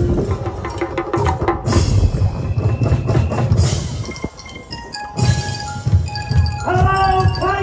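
A small live band playing on a river boat: percussion-led music with drums, knocking hand percussion and bell-like tones, and a melodic line entering near the end.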